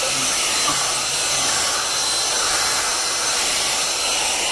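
Hand-held hair dryer running steadily, an even, constant hiss of blown air.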